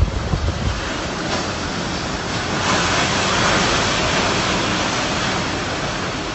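Typhoon Hagibis storm wind blowing hard and steadily, with gusts buffeting the microphone. It grows stronger about two and a half seconds in.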